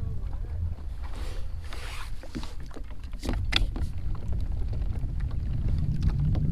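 Water lapping against a plastic fishing kayak's hull on choppy water, with wind rumbling on the microphone, and a couple of sharp knocks about halfway through.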